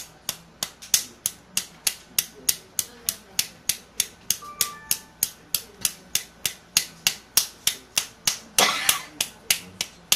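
Palm slapping rhythmically on the upper chest over the Zhongfu and Yunmen acupoints, about three sharp slaps a second, keeping an even beat. A longer rushing noise comes in briefly near the end.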